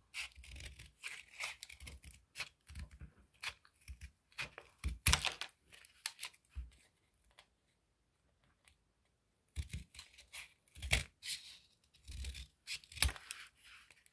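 Scissors snipping through tape-covered paper in a string of short, irregular cuts, with a pause of a couple of seconds past the middle before the snipping resumes.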